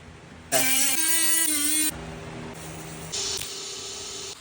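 Power drill running, likely boring the hole for an AFR sensor bung in the exhaust pipe: a whine that shifts in pitch for over a second, then a quieter steady hum with a burst of hiss near the end.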